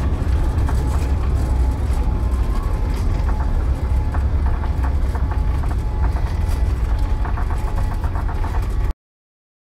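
Steady, loud cabin rumble inside a Boeing 787-8 Dreamliner on the ground just after landing, from engine noise and the undercarriage rolling on the runway, with light rattling near the end. It cuts off suddenly shortly before the end.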